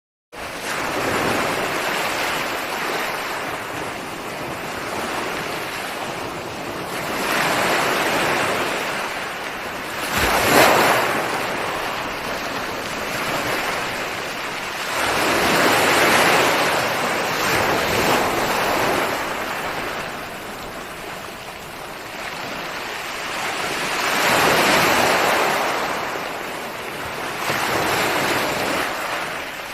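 Ocean surf: waves breaking and washing in, swelling and fading every several seconds, with the sharpest and loudest crash about ten seconds in. The sound cuts in abruptly right at the start.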